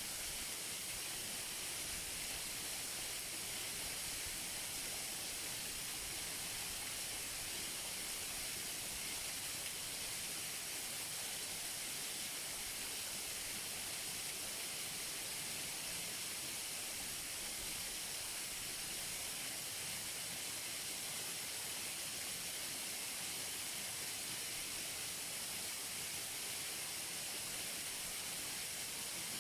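Waterfall heard close up: a steady rush of falling water, a hiss heavy in the highs that never changes.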